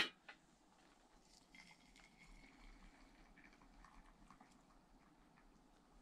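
Near silence: faint room tone with a few soft, light clicks.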